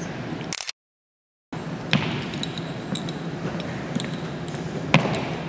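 Hard-soled shoe steps and heel strikes on a hardwood gym floor, echoing in a large hall, with the sharpest knocks about two seconds in and again near the end, over a steady low hum. The audio cuts out completely for about a second near the start.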